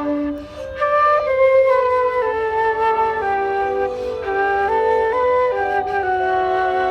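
An instrumental melody on a wind instrument, smooth held notes stepping up and down over a lower accompanying line, with a short breath-like break about half a second in.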